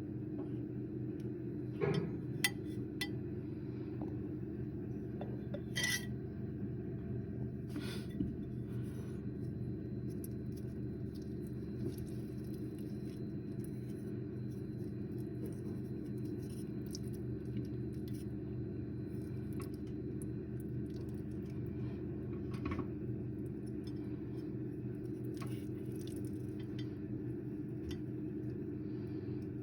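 Microwave oven running with a steady low hum. A few light clinks of dishware sound near the start and once more about two-thirds of the way through.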